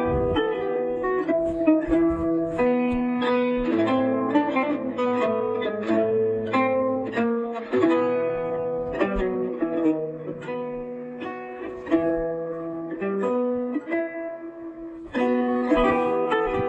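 Instrumental music: a melody of plucked string notes over sustained lower tones.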